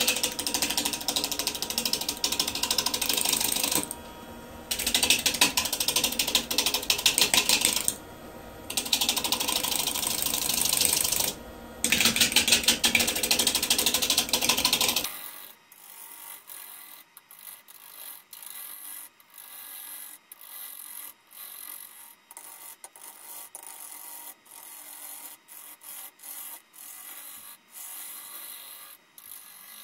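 Spindle roughing gouge cutting a spinning, out-of-round English yew blank on a wood lathe: the loud, rapid clatter of an interrupted cut, in bursts of a few seconds with short pauses. About halfway it drops to quieter, lighter cuts that come about once a second.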